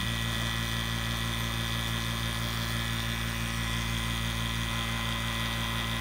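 CPS VPC2SU 2 CFM, 115-volt HVAC vacuum pump running, a steady hum of unchanging pitch, as it pulls a deep vacuum (around 1,000 microns) on a gauge manifold and hoses during its first run.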